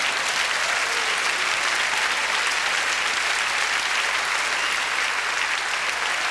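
Audience applauding: many hands clapping at once at a steady level.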